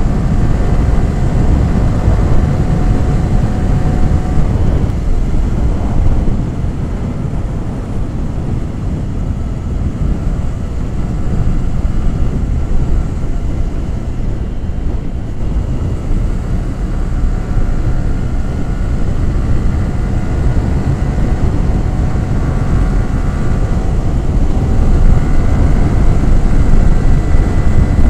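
Yamaha R15 V3's 155 cc single-cylinder engine and exhaust running under way, under a steady low rush of wind. The engine note fades back about six seconds in and comes up louder again near the end as the bike pulls harder.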